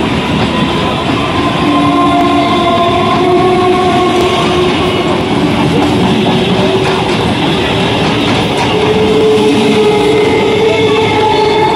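Electric multiple unit (EMU) local train running past at close range: a loud, steady rumble of the coaches, with several steady tones sounding over it, a lower one taking over about nine seconds in.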